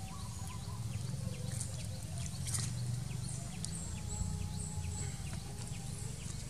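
Outdoor background of a steady low rumble with faint, scattered bird chirps and thin drawn-out calls.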